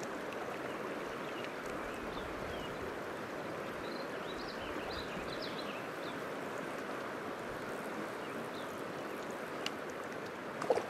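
Steady rush of the Pine River, a mountain river flowing over rocks. A few faint high chirps come about halfway through, and a short knock near the end.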